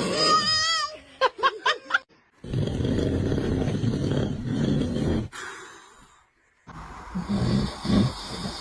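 A man snoring loudly in long, rasping breaths. Between two snores a baby squeals and giggles in a few short bursts.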